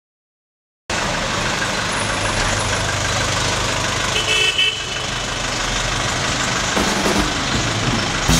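Street traffic: steady motor-vehicle noise with an engine rumble and a brief car horn a little after four seconds in, starting after a second of silence.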